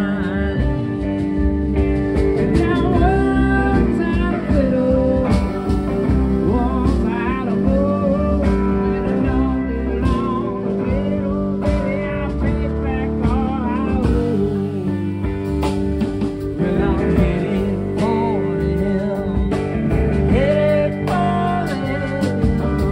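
Live band playing a country-rock song: electric guitar, drums and electronic keyboard.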